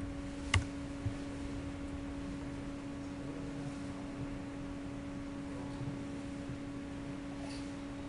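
Steady electrical hum with higher overtones. About half a second in there is a sharp key click, and a softer click comes about a second in: the key press that submits the Windows logon.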